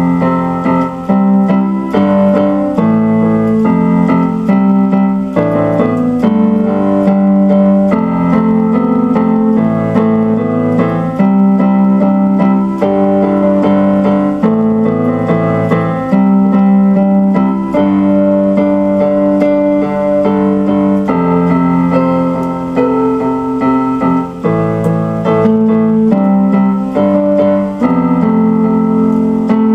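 Keyboard music on piano or electric-piano sound, with sustained chords that change every second or two.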